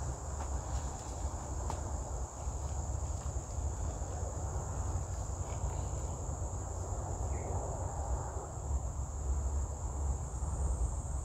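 Steady, high-pitched insect chorus, over a low, steady rumble.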